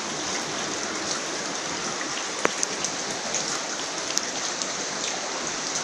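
Shallow floodwater rushing and splashing over the ground: a steady hiss with scattered small splashes and drips, and one sharper tick about two and a half seconds in.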